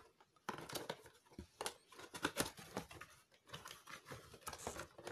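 Cardboard box being opened by hand: the lid flap pried open and the packing pulled out, giving scattered scrapes, rustles and sharp clicks of cardboard.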